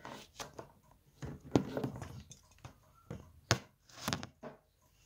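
A string of separate light knocks and taps on a plastic cutting board, with brief rustling, as a garlic bulb and minced garlic are handled.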